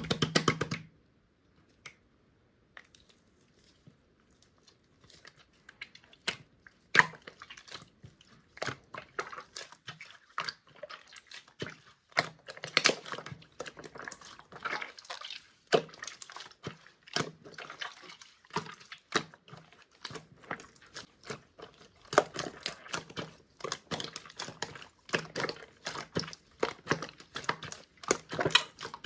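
Blue clear slime being squeezed and kneaded by hand, with irregular sticky clicks and wet pops. After a short louder burst at the start it is nearly quiet for a few seconds, and the pops become steady and frequent from about six seconds in.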